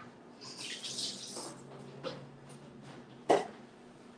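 Kitchen tap running briefly at the sink, then a single sharp knock a little after three seconds in.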